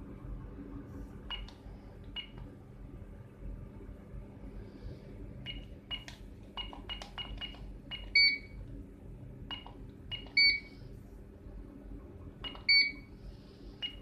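Soca ST-660S access-control keypad beeping as its keys are pressed while a mode-change command is keyed in: short high beeps with each key press, coming in quick runs, and three louder, slightly longer beeps about two seconds apart in the second half.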